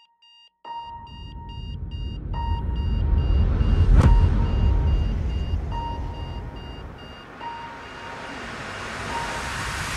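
Electronic alarm-clock beeping, about four quick high beeps a second, fading out over the first few seconds while a rising swell builds to a sharp hit about four seconds in. Then music: sparse held tones over a low rumble, swelling again near the end.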